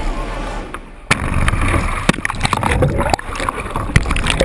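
Sea water splashing and gurgling as a kayak capsizes. A sudden loud splash comes about a second in, followed by churning, sloshing water with many sharp splashes.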